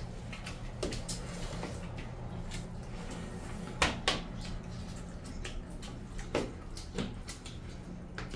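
Hands mixing and scooping rice and curry on steel plates: scattered clicks and taps of fingers against the metal, with two sharper knocks about four seconds in, over a steady low hum.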